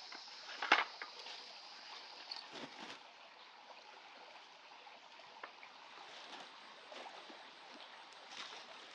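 Waterfall heard from its top: a steady, faint rushing hiss of falling water. A high steady whine fades out about three seconds in, and a single sharp knock comes just under a second in.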